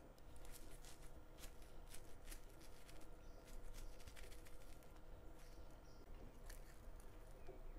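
Faint, scattered light clicks and taps over a steady low hum.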